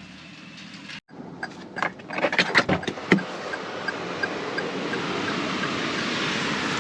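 A few knocks and clicks, then a steady rushing noise that builds and holds, with a faint regular ticking about three times a second.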